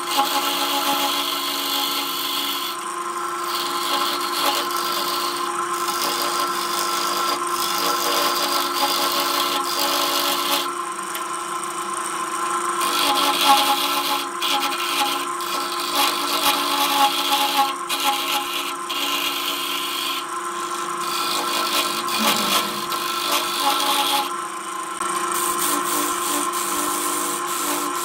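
Wood lathe running with a steady motor hum while a turning gouge hollows the inside of a spinning wooden bowl blank. The cut is a rough scraping hiss that comes and goes as the tool bites and eases off.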